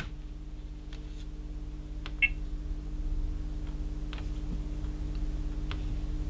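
A single short high beep from a Tektronix 222 portable oscilloscope at switch-on, about two seconds in, over a steady low electrical hum and a few faint clicks. The beep is all the scope does: it is otherwise dead and draws no current.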